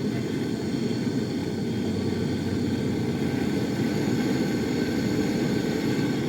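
Steady low mechanical drone from a running machine, even throughout with no change in pitch or level.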